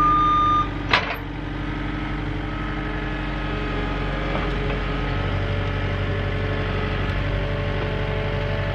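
Cat 259D compact track loader's diesel engine running steadily as the machine moves in and raises its lift arms. A short beep at the start and a single knock about a second in.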